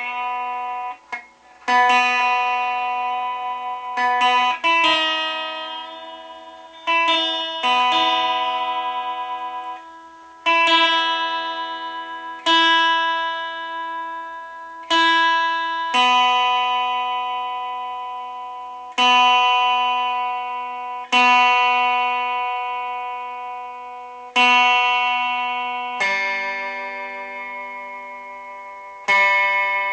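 Fender Squier Telecaster Affinity electric guitar played through an amplifier: a chord strummed about every two to three seconds and left to ring out slowly, about a dozen in all.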